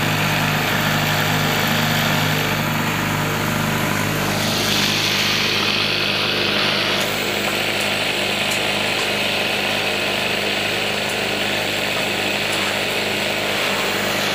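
Industrial flatbed sewing machine running steadily as it stitches webbing tape, its motor giving a constant hum under the stitching noise.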